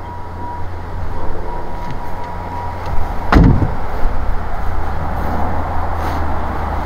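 Jeep engine idling with a steady low rumble. A thin steady tone stops about three seconds in, and right after it a car door shuts with a single heavy thud.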